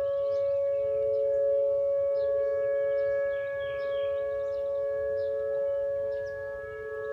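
Outdoor tornado warning siren sounding during its test: a steady chord of two close pitches that beat against each other, swelling and easing a little in loudness, with short high chirps above it.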